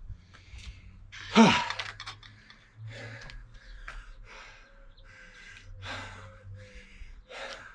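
A person breathing hard after a set of kettlebell swings: a loud voiced sigh about a second and a half in, then quick panting breaths about twice a second.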